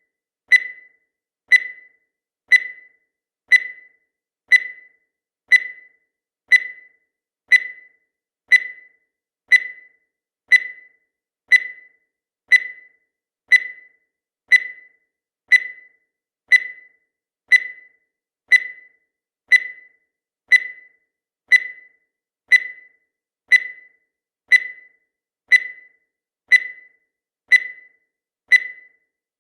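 Countdown timer's electronic beep, one short tone about once a second, each starting sharply and fading quickly.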